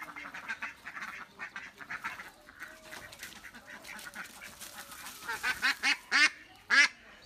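Domestic ducks quacking in quick runs, then a few loud, drawn-out quacks near the end from a duck that has just been caught and is being carried by hand: alarm calls.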